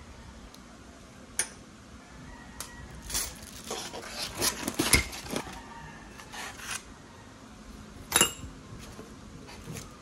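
Glass coffee pot parts and a wooden stand being unpacked from a foam tray and plastic wrap: light clinks and knocks of glass with rustling. There is a sharp click about a second and a half in, a busy patch of clinks and rustles in the middle, and the loudest click near the end.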